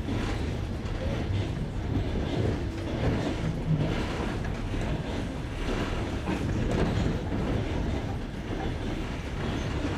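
Passenger train's wheels running over jointed rails, heard from aboard the carriage: a steady rumble with clickety-clack knocks as the wheelsets cross the rail joints.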